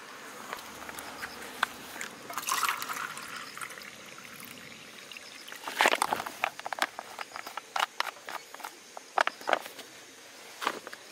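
Water trickling and bubbling, with scattered sharp little clicks and pops.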